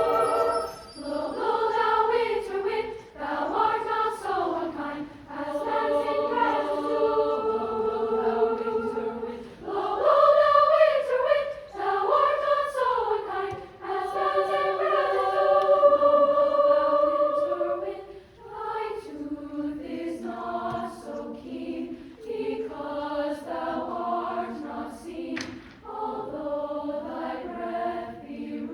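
Treble choir of upper voices singing a choral piece in harmony, in phrases with short breaks between them.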